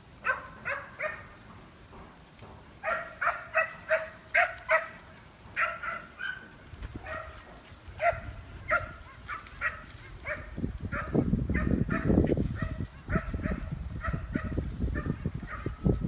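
Polish hound (Gończy Polski) baying while running: a long run of short, pitched barks, about three a second, with a short break early on. A low rumbling noise builds from about seven seconds in and is loudest in the second half.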